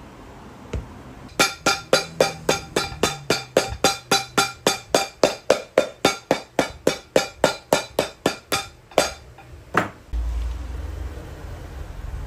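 Hammer tapping rapidly on a boot's freshly fitted leather midsole, about four sharp ringing blows a second for some seven seconds, then one last blow. Near the end a workshop machine starts up and runs with a low steady rumble.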